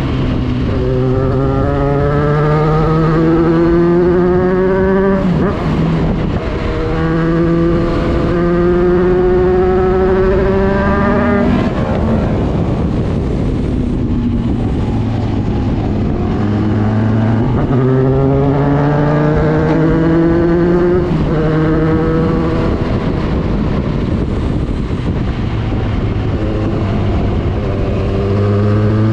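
Motorcycle engine heard from the rider's seat, pulling up through the gears: its pitch climbs steadily and drops sharply at each upshift, about five and eleven seconds in, sags for a few seconds in the middle while the throttle is eased, then climbs through two more shifts. Wind rushes steadily underneath.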